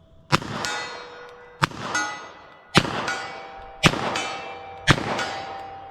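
Five revolver shots about a second apart, each followed a moment later by the ringing clang of a steel target being hit, the ring fading before the next shot.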